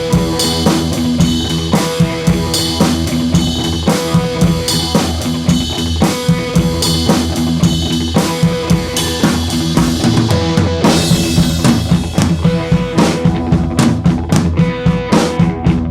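Background music: an instrumental track with a drum kit keeping a steady beat, thinning out briefly about ten seconds in before the drums come back.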